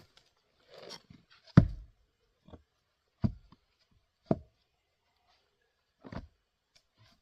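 A 3½-pound Craftsman single-bit axe striking and splitting grand fir rounds: four heavy wooden knocks, the loudest about one and a half seconds in.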